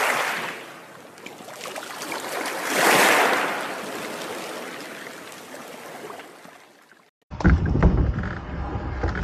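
A rushing, water-like whoosh from the intro sound effect swells twice and fades away. After a short break comes a low rumble of wind on the microphone aboard a small dinghy, with scattered knocks.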